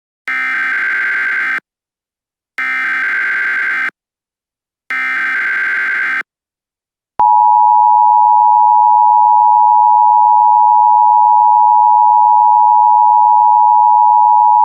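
Emergency Alert System alert opening: three short bursts of SAME header data, each about a second and a half long with about a second between them, followed about seven seconds in by the steady two-tone EAS attention signal, which holds to the end.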